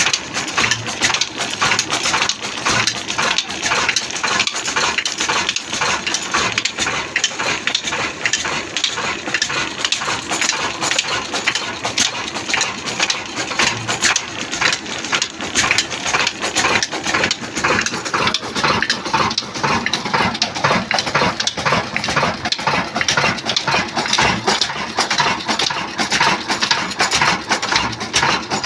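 Pakistani-built 26 hp stationary diesel engine running steadily under belt drive, with a fast, even metallic clatter from the engine and its turning line shaft and pulleys.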